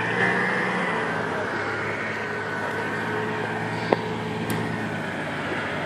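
Lifted Jeep Cherokee's engine running steadily at low revs as it crawls over rocks on a dirt trail, with one sharp knock about four seconds in.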